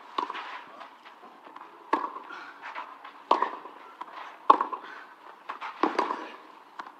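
Tennis ball struck back and forth in a baseline rally on a clay court: about five sharp racket hits, one every second and a half or so, each with a brief ring.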